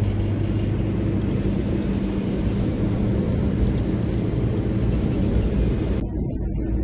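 Motorhome driving at highway speed, heard from inside the cab: steady engine drone with road and wind noise. About six seconds in, the higher hiss cuts away abruptly.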